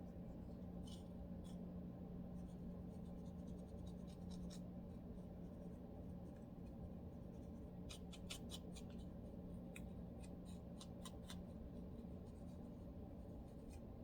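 Faint scratching and scraping at a dry, flaky scalp, in short flurries of quick light strokes over a steady low hum.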